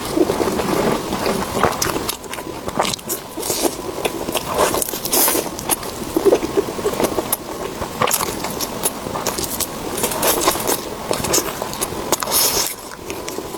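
Close-miked eating sounds: continuous chewing and biting with many sharp irregular clicks and crackles.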